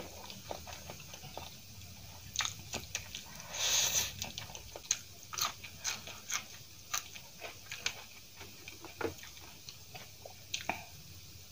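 Close-miked eating of Maggi masala instant noodles and raw green chillies: wet chewing and a slurp about four seconds in, with many short, sharp crunchy bites.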